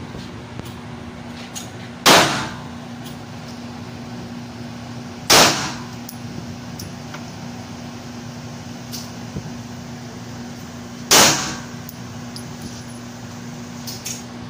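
Three handgun shots, each a sharp crack that rings briefly off the enclosed range: the first about two seconds in, the second about three seconds later, and the third about six seconds after that. A steady low hum runs underneath.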